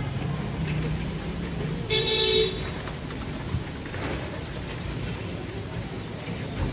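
Street traffic rumbling, with a vehicle horn tooting once, briefly, about two seconds in.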